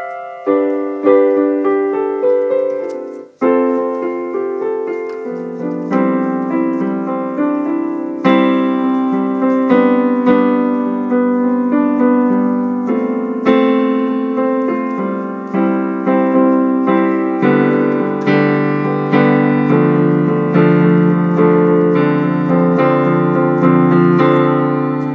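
Yamaha P-105 digital piano being played: a steady string of struck chords and notes that ring and fade, with a short break a little over three seconds in.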